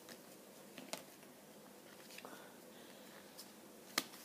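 Faint handling noise as Pokémon cards are handled: a few soft clicks and taps, with one sharper click about four seconds in.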